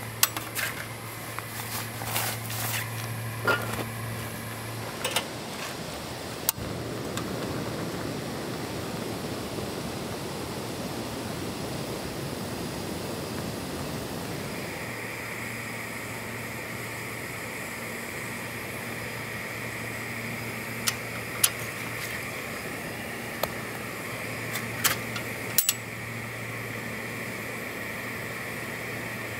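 Metal clicks and clatter as a stainless portable heater is handled and put together. Then a portable gas canister heater burns with a steady hiss, a higher steady hiss tone joining about halfway, and a few sharp metallic ticks later on.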